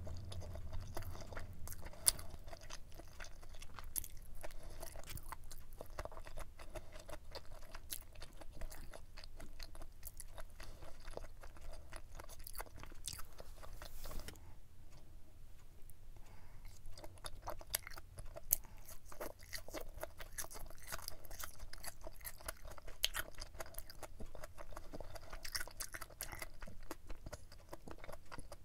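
A person chewing a mouthful of food with the mouth closed: a dense run of small clicks, with a short pause about halfway through.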